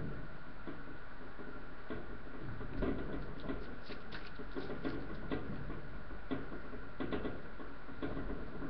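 Boston terrier puppies scrabbling and pattering on newspaper in a wire crate: irregular light scratches, rustles and small knocks, busier about three seconds in and again near seven seconds, over a steady background hum.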